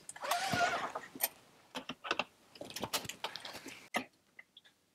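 A seat belt drawn out with a short rustling slide, then buckled, with several light clicks and taps; a sharper click near the end as the key goes into the ignition.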